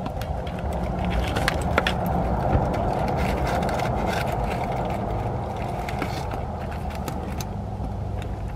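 Low vehicle rumble heard from inside a car, swelling over the first couple of seconds and slowly easing off. Scattered small clicks and crinkles come from fried chicken and its paper wrapper being handled and eaten.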